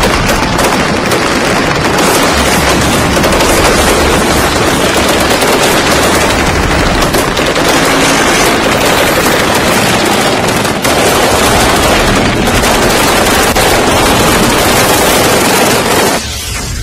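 Dense, continuous automatic gunfire from several rifles and machine guns firing at once, with no break in the shooting.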